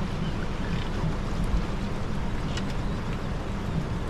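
Small boat's outboard motor running with a steady low hum, under the rush of wind and choppy river water against the hull.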